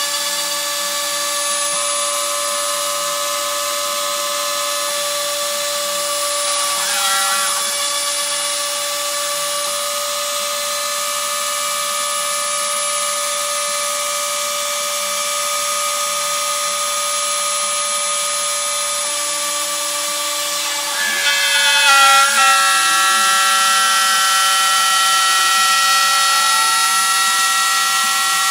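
Dremel rotary tool spinning steadily as the spindle of a hobby CNC machine cutting a light blue sheet, with the machine's axis motors whining in steady tones that shift pitch as the moves change. About 21 seconds in it gets louder and the motor tones glide up and down in pitch, as the machine follows a curve.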